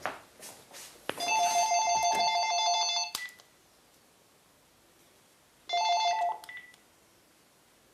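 Telephone ringing with a two-tone electronic ring for about two seconds, then a second ring that breaks off after about half a second as the call is hung up. A few light knocks come before the first ring.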